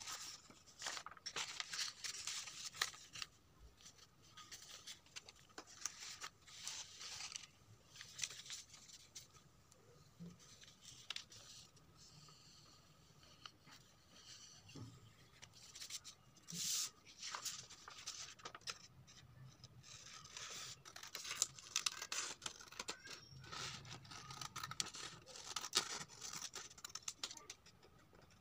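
Sheets of red craft paper being handled and rustled, and a pen scratching as it traces around a paper template. Toward the end, scissors snip and slide through the paper in quick irregular strokes.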